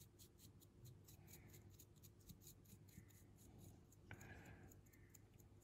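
Faint, rapid scratching of a dry paintbrush flicked over a small plastic miniature gun turret, about six strokes a second, with one light click about four seconds in.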